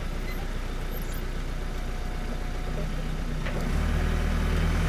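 Compact excavator's diesel engine running steadily, then revving up and growing louder about three and a half seconds in as the machine is set to drive off on its tracks.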